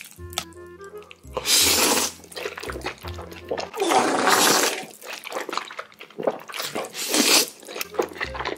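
Several long, loud slurps of jjajangmyeon (black-bean-sauce noodles) being sucked up off chopsticks, about one and a half, four and seven seconds in, with wet chewing noises between them. Background music with a steady bass line plays underneath.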